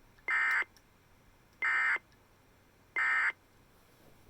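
Emergency Alert System end-of-message code: three short bursts of digital data tones about 1.3 seconds apart, marking the close of the alert broadcast.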